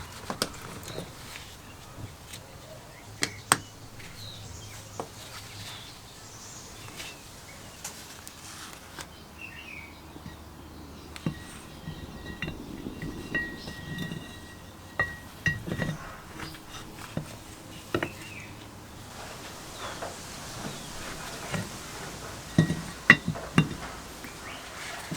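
Irregular metallic clinks, taps and knocks of tools and small metal parts being handled, with a few sharper knocks about three seconds in and again near the end.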